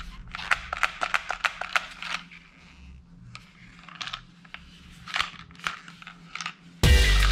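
Light plastic clicks and rattles from a hollow yellow plastic toy revolver being handled and turned over, a quick run of clicks at first and then scattered ones. Loud music starts near the end.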